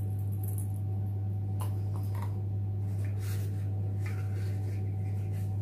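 Faint handling sounds of a charm bracelet and a jewellery box: a few small clicks and rustles around the middle and later on, over a steady low hum.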